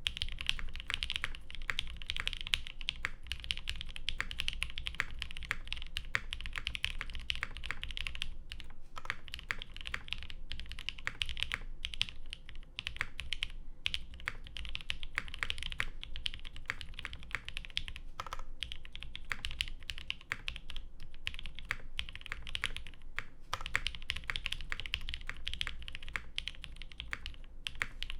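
Typing at a steady pace on a Mode SixtyFive mechanical keyboard with lubed 62g Creamsicle switches, a carbon fiber half-plate and GMK keycaps: a dense run of keystroke clacks with a few short pauses.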